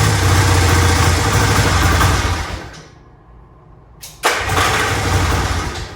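Yamaha 540 snowmobile twin-cylinder two-stroke engine running, then dying out about two and a half seconds in; it fires up again sharply about four seconds in, runs briefly and dies again near the end. The owner puts the stalling down to running out of fuel.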